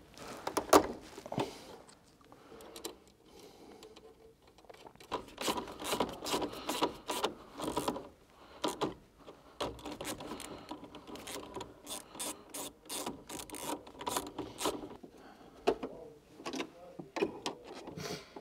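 Hand tools and small plastic and metal parts in a distribution board clicking, scraping and rattling as a screwdriver works terminal screws and components are pressed onto the DIN rail. Many short sharp clicks come irregularly, busiest in the middle seconds.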